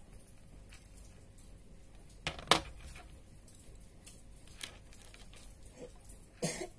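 Small metal clicks and taps of jewellery pliers and beaded findings being handled and hooked together, a sharp double click about two and a half seconds in the loudest. A cough near the end.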